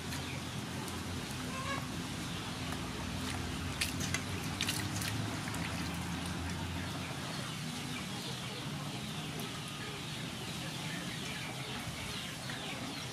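Water sloshing and splashing as chopped broccoli and cilantro are washed by hand in a steel bowl, with a few sharp splashes and knocks about four seconds in. Birds call faintly in the background.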